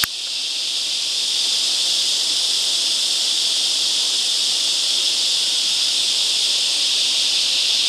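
Steady, high-pitched insect chorus, unbroken throughout.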